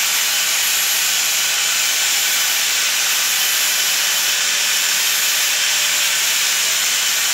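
A steady hiss that stays even throughout, with no distinct knocks or pitched tones.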